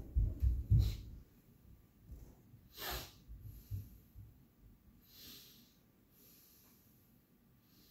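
A few soft low thumps in the first second, then a short nasal snort about three seconds in and a breathy exhale through the nose about two seconds after that.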